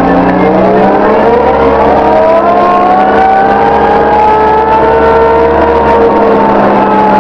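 Komatsu WA75 wheel loader's diesel engine and drive running loud as the loader travels along a road. A whine climbs slowly in pitch for about five seconds, then eases off slightly.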